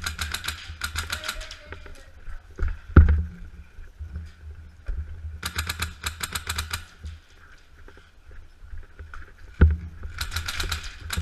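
Airsoft rifles firing in rapid full-auto bursts of sharp clicking shots, four bursts in all, with two loud thumps, one about three seconds in and one near the end.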